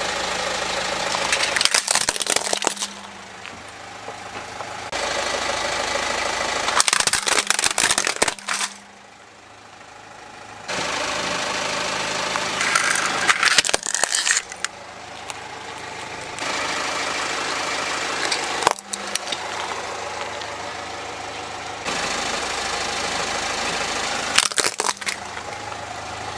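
A car engine idling as a tyre rolls slowly over plastic toys, with bursts of cracking and crunching plastic about five times. The engine sound changes abruptly every few seconds between separate takes.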